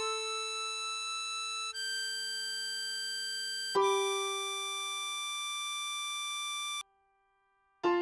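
Slow synthesized tutorial music: sustained harmonica-like melody notes over keyboard chords that change about every four seconds, A minor, then G major, then F major right at the end. Each chord strikes and fades slowly, and the music breaks off into silence for about a second before the last chord.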